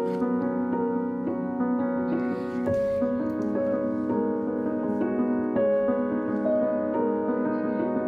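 Gentle background piano music, single notes and chords struck one after another at an unhurried pace.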